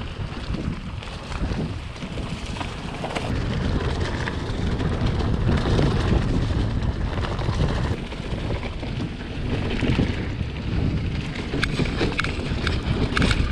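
Wind buffeting the microphone of a camera carried on a moving mountain bike, a steady rumble mixed with tyre and trail noise, with a few sharp clicks and rattles near the end.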